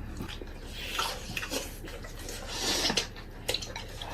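Eating utensils clinking and scraping against a bowl of rice: a string of separate small knocks, with a longer scrape a little before the end.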